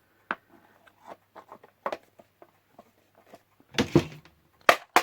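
Scattered clicks, knocks and scrapes as a Roberts R717 radio's front part, still stuck fast, is forced and levered at by hand. The loudest knocks come in a cluster about four seconds in and again near the end.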